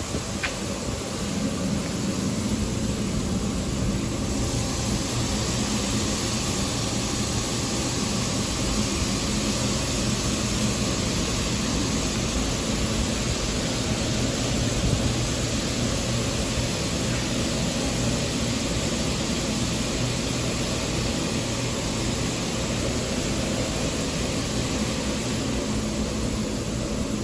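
Mark VII touch-free car wash gantry spraying pre-soak over a car: a steady hiss of spray nozzles over the low hum of the wash's pumps and motors. The hiss grows about four seconds in.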